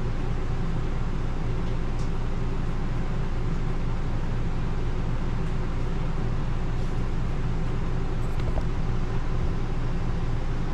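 A steady low droning hum from a running machine, unchanged throughout, with a couple of faint light clicks.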